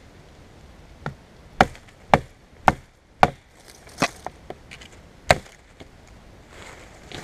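A Mora Robust knife chopping into a wooden branch to trim it: a series of sharp wooden chops, four hard strokes about half a second apart, then a few more strokes with lighter taps between.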